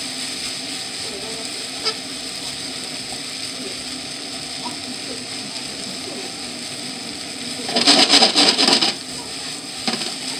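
Sauce-coated fried noodles and rice sizzling steadily in a frying pan while a spatula stirs and scrapes through them, mixing in the yakisoba sauce. A louder burst of scraping and tossing comes about eight seconds in, with a few clicks of the spatula on the pan.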